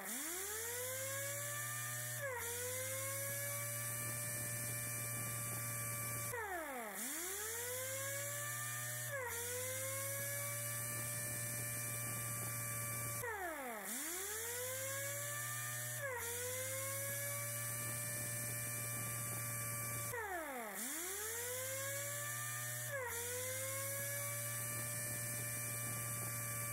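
Electronic background music: a sustained droning chord whose pitch swoops sharply down and back up in a repeating cycle about every seven seconds.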